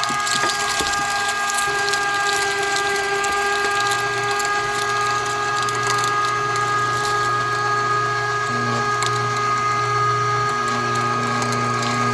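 Electric meat grinder running steadily with a high motor whine and a low hum, its auger grinding raw bone-in chicken and beef, with scattered sharp cracks.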